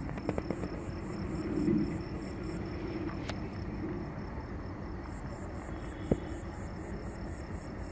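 Crickets chirping in a steady pulse, about four chirps a second, over the low rumble of a train approaching in the distance. A couple of short sharp clicks stand out.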